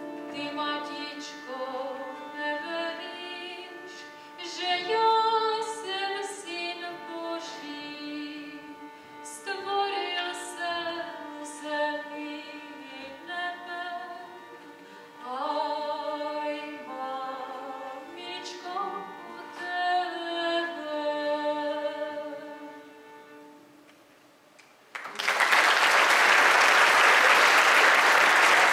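A Czech folk carol sung with bowed-string accompaniment. The song ends about 24 seconds in, and a second later an audience breaks into applause, the loudest part.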